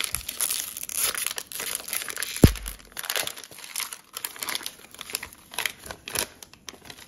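Hockey card fat pack wrapper being torn open and crinkled in the hands, with rapid crackling throughout. One sharp knock, the loudest sound, about two and a half seconds in.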